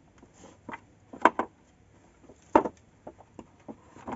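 Hollow bamboo poles of a bench knocking under a person shifting his weight on them: a series of short, sharp wooden knocks, two close together a little after one second and the loudest about two and a half seconds in, with lighter clicks between.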